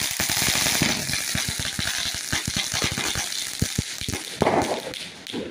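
Chakri ground-spinner firecrackers hissing and crackling steadily as they spin and spray sparks.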